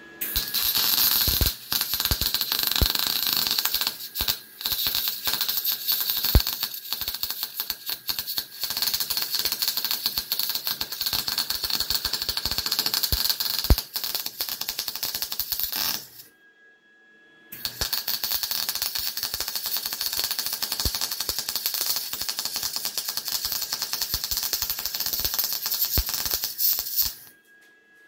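MIG welder arc crackling steadily as a bead is laid, stopping for about a second and a half at around 16 seconds and then striking again for a second run of about ten seconds.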